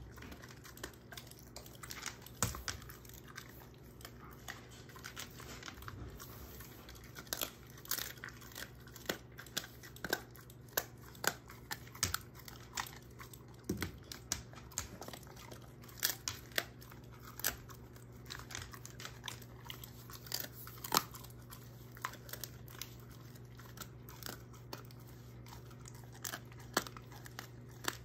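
German shorthaired pointer chewing and crunching a hard treat: many sharp, irregular crunches, coming thicker after the first several seconds.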